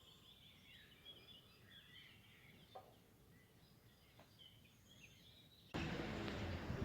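Faint outdoor ambience with scattered small birds chirping. About a second before the end, a loud rushing noise sets in suddenly.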